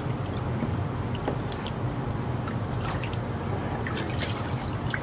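Watery paper pulp sloshing and dripping as a wooden mould and deckle is dipped into a tub of slurry and lifted out, water draining through the screen back into the tub in many small drips.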